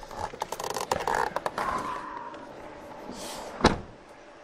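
Clicks and rustling, then a single loud slam about three and a half seconds in: the 2000 Dodge Ram 1500 pickup's door being shut after the engine is switched off.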